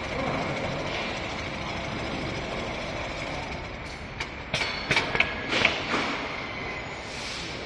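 Richpeace automatic cap-trim sewing machine running with a steady mechanical clatter, broken by a quick series of sharp clacks about halfway through.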